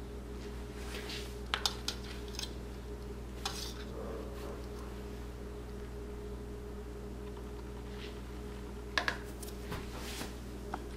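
A metal knife working cream frosting over a cake, giving a few light clicks and taps, with a sharper pair of clicks about nine seconds in. A steady low hum runs underneath.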